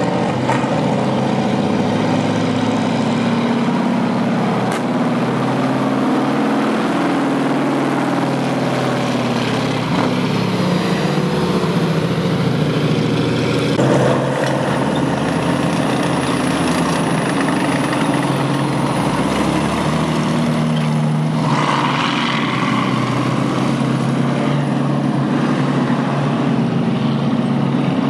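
World War II tracked armoured vehicles, an M4 Sherman tank among them, driving slowly past one after another with their engines running steadily and their tracks rolling on the road.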